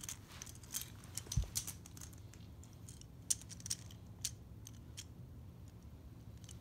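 Small toy monster trucks clicking and clattering against each other as they are gathered up in a child's hands: scattered light clicks, with one soft low thump about a second and a half in.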